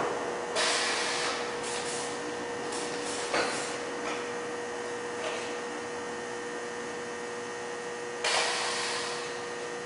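Industrial lift-assist manipulator with a gripper attachment being worked: a steady hum runs throughout, broken by three short hisses, the middle one with a click, as the gripper is operated.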